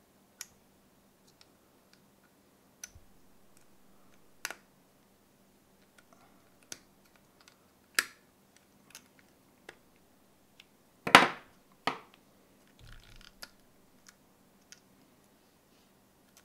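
Irregular sharp clicks and snaps of metal pliers and side cutters working on the cells and metal tabs inside a 9-volt alkaline battery as it is pulled apart, the loudest snap about eleven seconds in.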